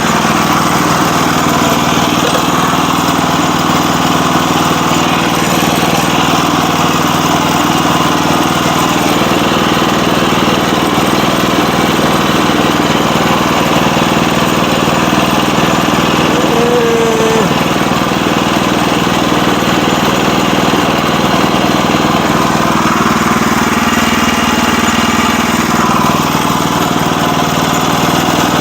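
Sawmill's small gas engine running steadily while the mill saws through a log.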